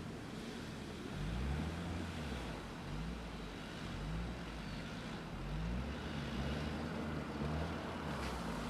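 Off-road 4x4's engine running as it drives on, the revs rising and falling over and over.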